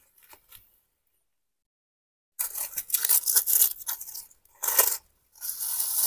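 Grass and leaves rustling and crackling close to the microphone in three bursts, the first and longest starting about two seconds in.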